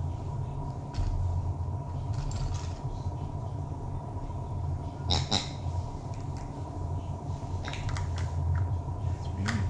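Plastic baby toys being handled, giving scattered light clicks and taps, the loudest a sharp double click about five seconds in and a cluster near eight seconds, over a steady low room hum.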